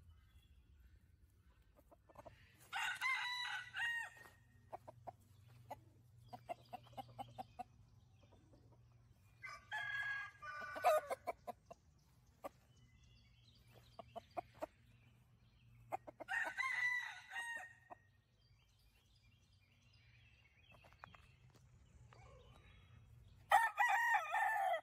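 Gamecock roosters crowing: four full cock-a-doodle-doo crows about seven seconds apart, the last one cut off short. Faint short clucks between the crows.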